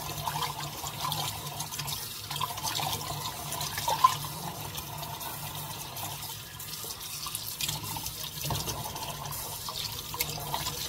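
Kitchen tap running into a stainless steel sink, the stream drumming on the metal, with splashing as hands wash puppies in the shallow water. A single brief sharp sound stands out about four seconds in.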